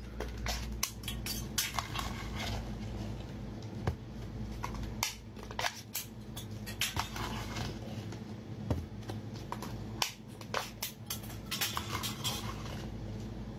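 A glass jar of sauced crayfish tails opened by its wire-clasp lid and emptied onto a serving tray: scattered clicks and knocks of the lid and glass, with the tails tumbling and slapping wetly out onto the tray, over a low steady hum.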